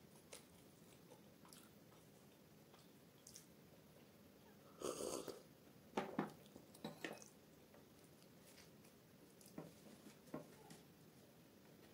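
Quiet close-up eating sounds, mostly near silence: a short louder noise about five seconds in, then a few light mouth clicks and smacks.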